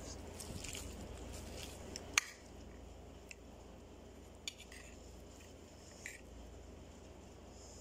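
Metal spoon scraping and clinking against a ceramic plate of rice, with one sharp clink about two seconds in and a few lighter taps later.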